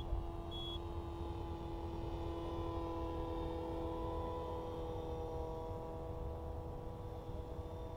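T-Rex 450 electric RC helicopter in flight, its Scorpion brushless motor and rotors making a steady, humming whine whose pitch drifts slightly as it flies by.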